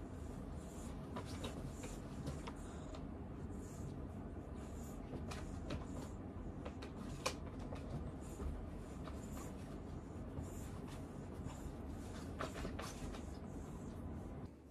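Fingers rubbing a cat's fur at its neck and chest and brushing its plastic cone collar: soft, repeated scratchy rubbing with light clicks, one sharper click about seven seconds in, over a steady low hum.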